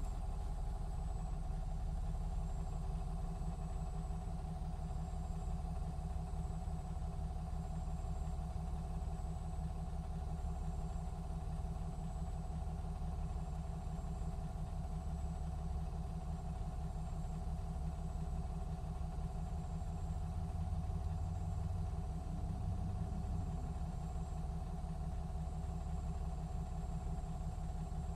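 Diesel engine of a 2017 MCI D4500CT coach, a Cummins ISX12 inline-six, running at a steady, unchanging speed: a low even rumble with a faint steady hum above it.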